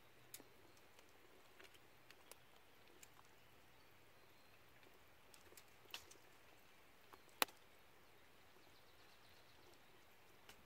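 Near silence broken by scattered faint clicks and crackles, with one sharper click about seven seconds in.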